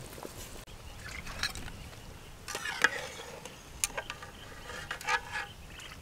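A metal ladle scraping and clinking against an aluminium cooking pot as boiled meat is lifted out, a few separate scrapes and sharp clinks.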